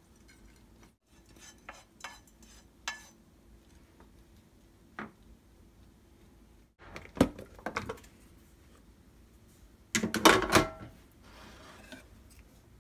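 Kitchen utensil noise: a wooden spatula scrapes and taps as stir-fried dried anchovies are pushed from a frying pan into a glass container. A few light knocks follow, then a louder burst of dish clatter a little after ten seconds.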